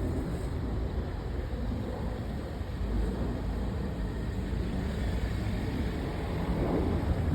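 Jet engines of an Airbus A330-200 airliner, heard as a steady low roar.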